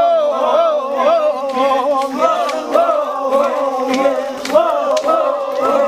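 A group of men chanting together for a traditional Papuan dance, holding long wavering notes in unison with sharp clicks here and there.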